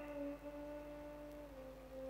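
Faint soft melody of long held notes, one low and one an octave above, stepping down a little in pitch about one and a half seconds in.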